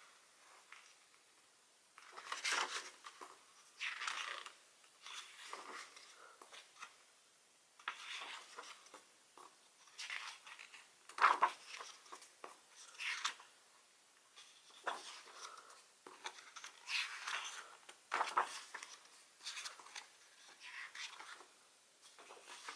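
Pages of a photobook being turned and handled: paper rustling and sliding in short irregular bursts, starting about two seconds in.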